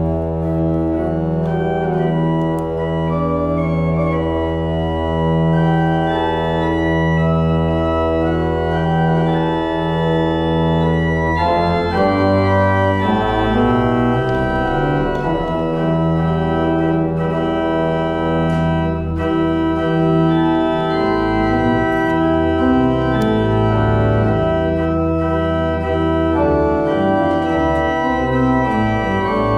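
Church pipe organ playing a postlude in held, full chords over sustained low pedal notes. The chords change about twelve seconds in.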